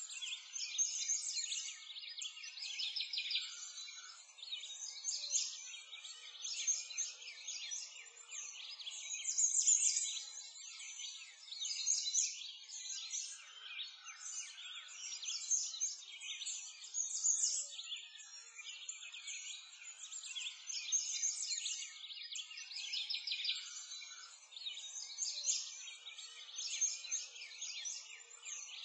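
Birdsong ambience: many small birds chirping and trilling at once in a dense, continuous chorus of short high calls, with no low sounds under it.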